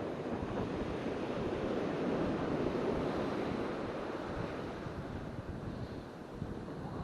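Sea surf washing in, with strong wind buffeting the microphone; the rush swells once and then eases.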